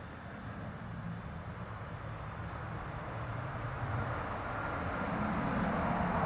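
A distant vehicle approaching: a steady rushing engine and road noise that grows gradually louder.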